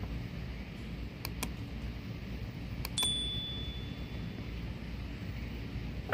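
A click followed by a bright bell ding about three seconds in, ringing out for about a second: the sound effect of a subscribe-button animation. A few faint clicks come earlier over steady low background noise.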